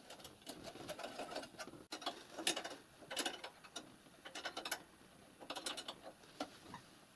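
Steel spanner clicking and tapping against a brass union nut as a copper steam pipe fitting is tightened, in small clusters of faint metallic ticks every second or so.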